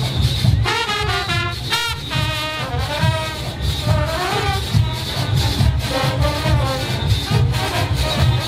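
Junkanoo parade band playing live: a brass section carries a melody over a heavy, pulsing drum beat.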